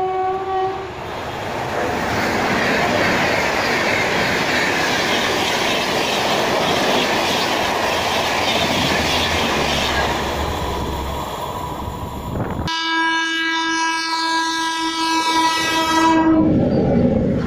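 Indian Railways electric locomotive horn sounding briefly at the start, then passenger coaches rushing past at speed with a steady rumble and wheel-on-rail clatter. After a sudden cut, a second electric locomotive sounds a long horn blast whose pitch drops as it passes.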